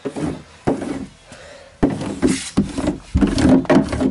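Foil-backed vibration-damping mat being pressed and rubbed flat by hand onto a car door's inner sheet-metal panel: irregular rubbing and crinkling scrapes, with a sharp knock about two seconds in.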